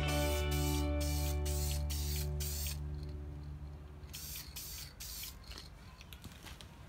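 Aerosol can of headlight tint spraying onto a headlight lens in a series of short bursts, about six in quick succession, then a pause of over a second and about three more before it stops about five seconds in.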